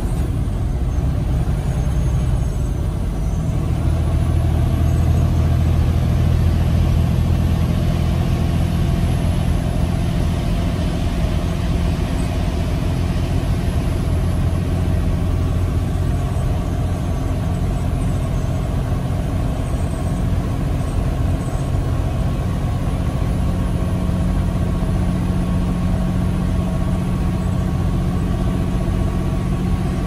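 Freightliner Cascadia semi-truck cruising, heard from inside the cab: a steady engine drone with tyre and road noise.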